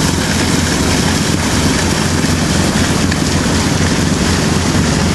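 Sailboat's inboard engine running steadily under way, a constant low drone, under a steady rush of wind and water.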